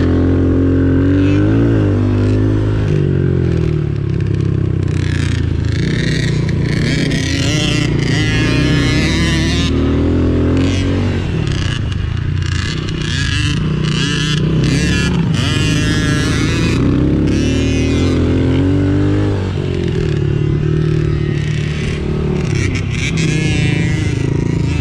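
Small 110cc off-road engine running under way, its pitch rising and falling as the throttle is opened and eased off.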